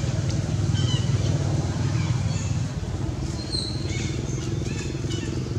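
A steady low engine rumble, with a few short high-pitched chirps over it.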